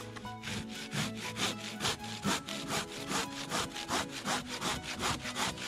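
A cheap AliExpress hand saw cutting through wood in steady back-and-forth strokes, about two to three a second.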